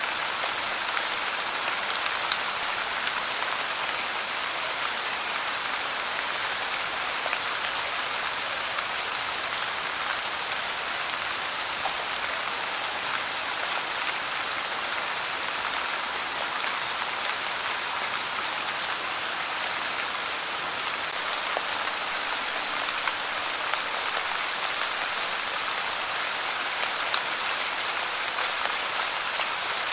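Steady light rain: a dense, even patter of small drops hitting a surface, with no let-up.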